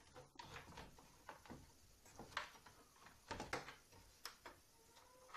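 Faint, scattered clicks and knocks of an LCD monitor's panel and plastic casing being handled, a few more together about three and a half seconds in.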